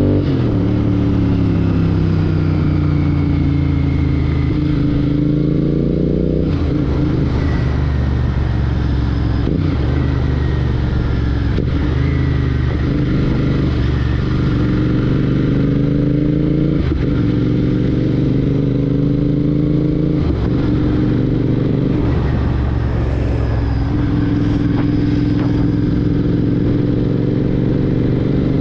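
Royal Enfield Continental GT 650's parallel-twin engine running through a Red Rooster Performance aftermarket exhaust, heard as the motorcycle is ridden. The engine note is steady and loud, and its pitch falls and climbs several times as the revs change, with short breaks every few seconds.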